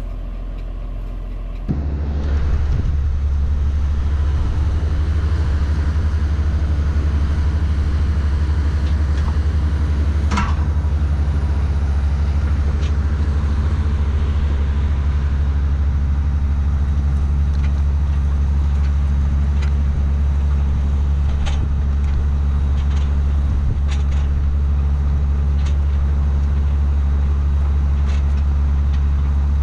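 Diesel farm tractor engine running at a steady speed, a loud, even low drone, as when pulling a loaded wagon. The drone sets in abruptly about two seconds in, replacing a quieter sound.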